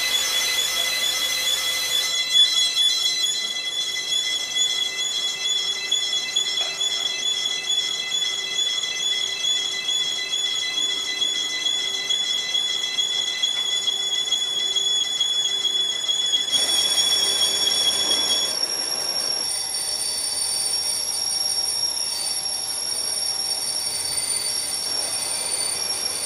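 Metalworking machines, including a lathe, running with a steady high-pitched whine. A second, higher whine joins about sixteen seconds in.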